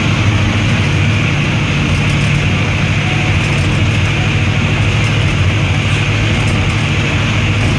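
ZCU-30 diesel locomotive running at speed through a steel truss bridge: a loud, steady drone of engine and running noise with no break or change.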